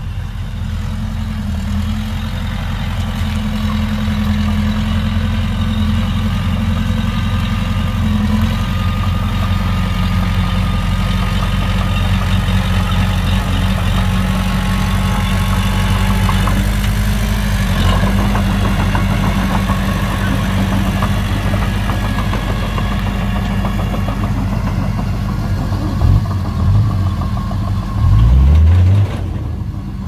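Heavy diesel engine of earthmoving machinery running steadily, changing pitch near the end with a brief louder rev.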